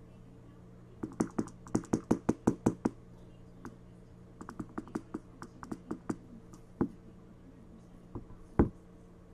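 Typing on a computer keyboard: a quick run of about a dozen key clicks, then slower, scattered keystrokes, ending with one louder knock near the end.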